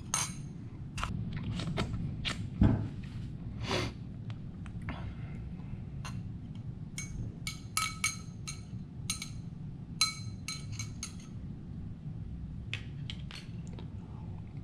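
Metal stirrer clinking against the inside of a glass tumbler of whiskey as it is stirred: a run of quick, ringing taps between about seven and eleven seconds in. Scattered knocks from glassware being handled come before it.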